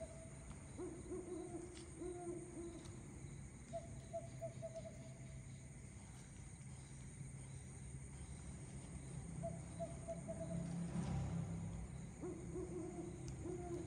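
A night animal calling in short runs of quick repeated notes, several times, some runs higher-pitched and some lower, over a steady low rumble.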